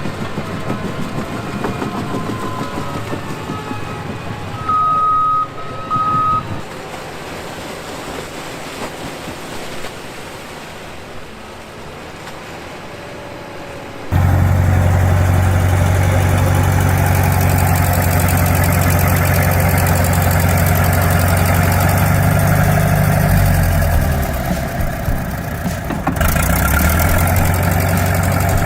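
Machinery running quietly, with a few short high beeps about five seconds in. Partway through it cuts suddenly to an old heavy-equipment engine running loud and steady.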